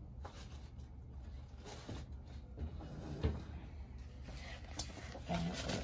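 A few light knocks and rustling handling sounds over a low steady hum, with one sharper knock about three seconds in.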